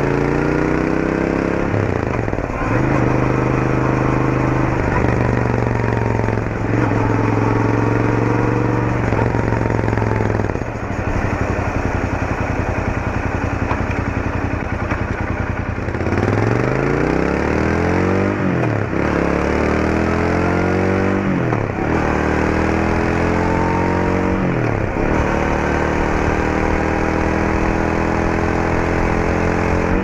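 Royal Enfield Interceptor 650's parallel-twin engine heard from the rider's seat on the move. Its revs climb and then drop again and again as it shifts up through the gears, with steadier cruising stretches in between.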